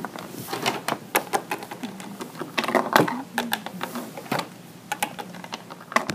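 Irregular light clicks and taps, handling noise from objects being moved about on a wooden tabletop, the sharpest about halfway through.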